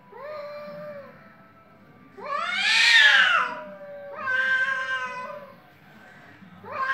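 Two cats caterwauling at each other in an aggressive standoff: long, drawn-out yowls. There are four in all: a short one at the start, the loudest about two seconds in, rising and then falling in pitch, another about four seconds in, and one more starting at the very end.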